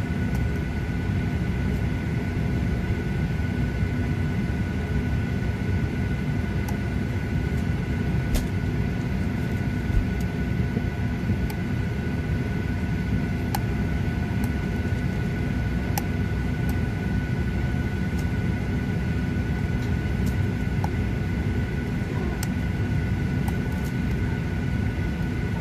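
Cabin noise of a Boeing 737-800 on the ground with its CFM56 engines at idle: a steady low rumble with a thin steady high whine over it, and a few faint clicks.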